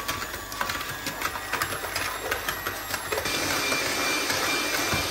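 Electric hand mixer running, its beaters creaming butter and brown sugar and clicking repeatedly against a plastic bowl. About three seconds in, the motor's whine turns steadier and brighter.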